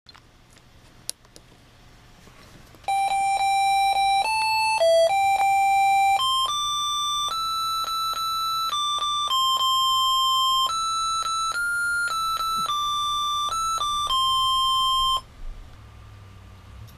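An Arduino Mega playing an RTTTL ringtone: a one-note-at-a-time electronic beep melody that steps between pitches. It starts about 3 s in and stops suddenly about 15 s in.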